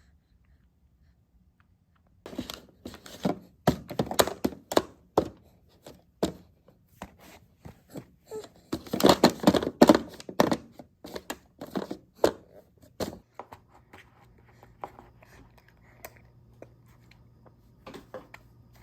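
Objects being handled close by: a run of knocks, clicks and rustling, busiest in the middle. After that it dies down to a few faint clicks over a low steady hum.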